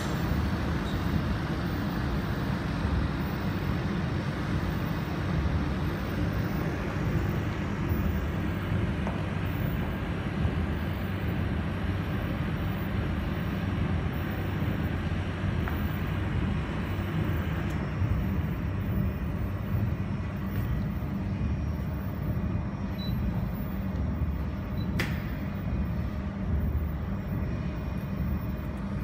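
Steady low running hum of a jewelry laser welding machine's cooling equipment, its fans and water chiller, with a single sharp click about 25 seconds in.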